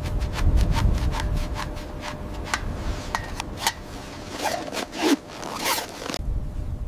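Gear being handled: a quick run of sharp clicks, about three or four a second, then a few longer scraping strokes, over a low wind rumble on the microphone. The sound cuts off suddenly near the end.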